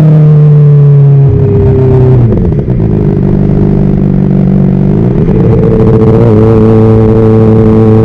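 Honda CBR600RR's inline-four engine running while riding. Its pitch eases down, dips briefly about two and a half seconds in, climbs again around five seconds, then holds steady.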